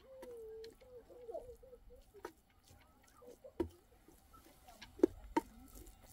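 Wooden spatula knocking against a metal cooking pot as spaghetti is stirred and tossed: four sharp scattered knocks, the loudest two about half a second apart near the end.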